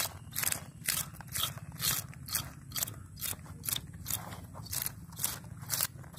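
A blade scraping and cutting a hilsa fish in quick, even strokes, about two a second.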